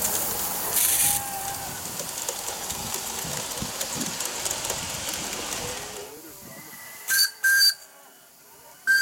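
Live-steam garden-scale model locomotives on the move: a steady hiss, then two short, high-pitched steam-whistle toots about seven seconds in.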